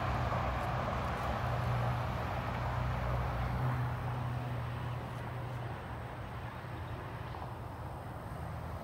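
Steady traffic noise from the I-75 interstate highway: a constant rush of tyres with a low hum beneath it, slowly fading toward the end.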